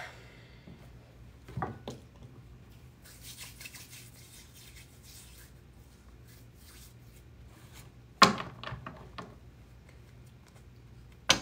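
A deck of tarot cards being handled and shuffled: soft sliding and rubbing of the cards, with a few sharp taps, one about two seconds in and a louder one about eight seconds in.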